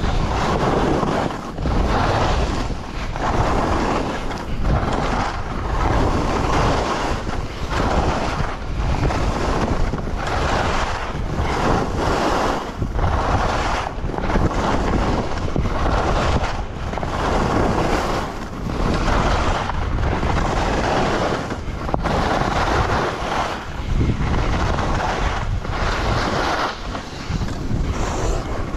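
Skis hissing over snow with wind buffeting the camera microphone during a ski run, the noise swelling and dropping about once a second.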